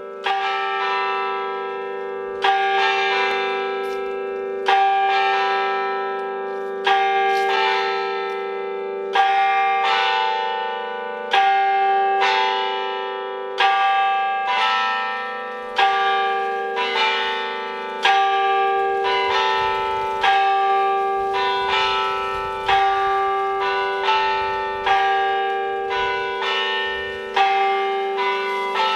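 Church bells ringing in a steady sequence, each struck note ringing on and fading before the next, over a sustained low hum, with a heavier stroke about every two seconds.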